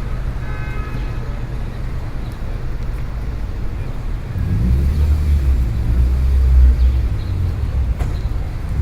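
City street ambience: a steady low traffic rumble, with a vehicle passing close by that makes the rumble swell for a couple of seconds around the middle.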